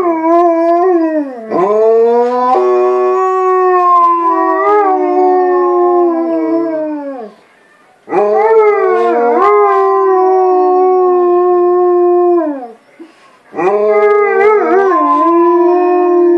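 White Swiss Shepherd dog howling: three long howls of several seconds each, with short pauses between them, the pitch dipping and rising within each howl and falling off at the end.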